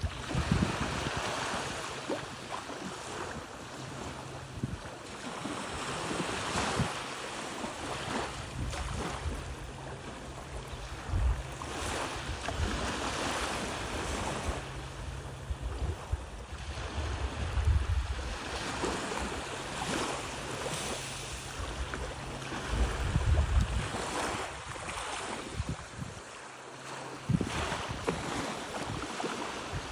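Surf washing onto a beach, its noise swelling and fading every few seconds, with wind gusting on the microphone.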